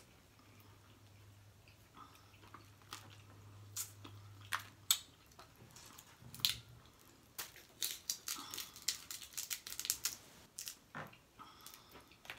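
Person eating steamed blue crab close to the microphone: shell cracking and wet chewing and smacking, heard as a string of sharp irregular clicks and crunches that come thickest about eight to ten seconds in.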